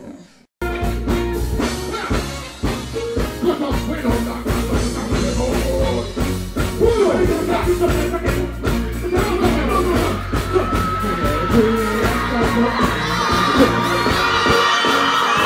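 Live dancehall music through a stage sound system, with heavy steady bass and an artist singing into a microphone over the riddim. It starts abruptly about half a second in.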